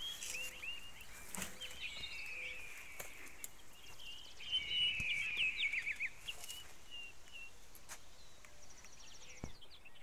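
Small songbirds chirping and calling, with a quick run of trilled notes near the middle, over a faint outdoor background and a few soft knocks.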